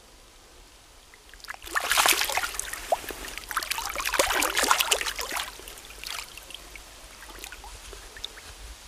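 A hooked fish thrashing at the surface of shallow stream water. The splashing starts about two seconds in and goes on for about three and a half seconds, then dies down to small splashes and trickling.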